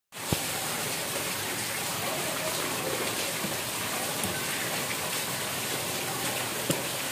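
Steady even hiss with a couple of short, sharp knocks from a tape-wrapped paper parcel being handled, one just after the start and one near the end.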